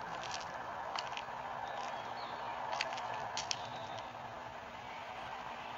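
A few light, irregular crunching steps on leaf litter over a steady outdoor hiss.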